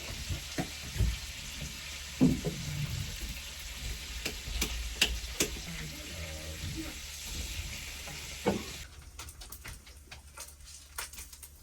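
Food sizzling in a frying pan, with clicks and knocks of utensils. About nine seconds in, the sizzle cuts off suddenly and only scattered light clicks remain.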